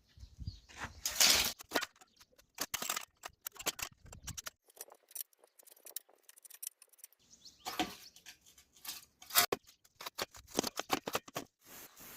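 Irregular clinks, clicks and knocks of small steel parts and hand tools being handled, in clusters with a short pause in the middle.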